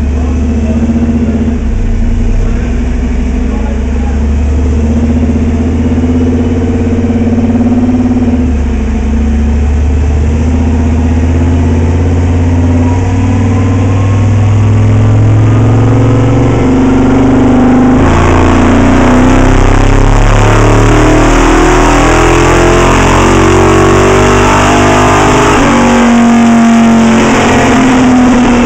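Chevrolet 350 small-block crate V8 in a Camaro running in gear on a chassis dyno, steady at low revs at first. About two-thirds of the way through it goes to full throttle, louder, with the revs climbing in a dyno pull, and it eases off near the end.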